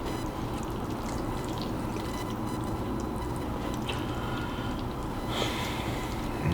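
Close-up wet chewing and mouth sounds of someone eating, with a few soft clicks and a slightly louder smack about five seconds in.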